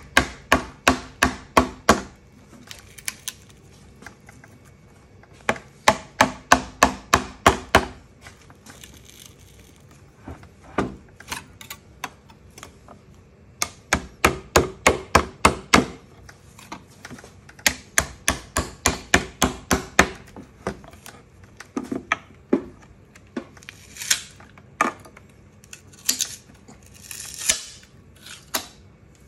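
A rubber mallet knocking in quick runs of sharp taps, about four a second, in four bursts, working a letterpress plate loose from its base. Near the end come a few short scraping sounds as the plate is pried off.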